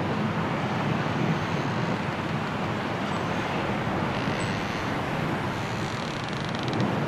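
Strong wind blowing steadily through the trees in a snowstorm, a dense rushing noise with no clear pitch.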